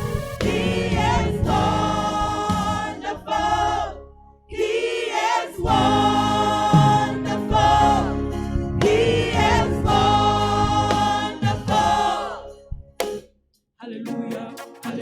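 Choir singing a gospel hymn in sustained, chorded phrases over a steady low accompaniment. It breaks off about thirteen seconds in, and other music starts near the end.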